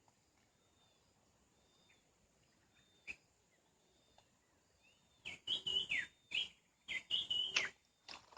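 A bird calling with short high whistled notes, faint and spaced out at first, then louder and quicker, with notes bending up and down, over the last three seconds.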